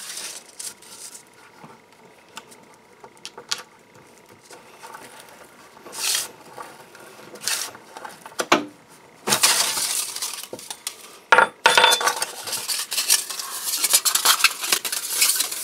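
Thin sheet-metal windscreen panel being handled and rolled into a cylinder by hand on a wooden bench. For the first nine seconds or so there are scattered light taps and clinks. From about nine seconds in there is a continuous metallic rattling and scraping.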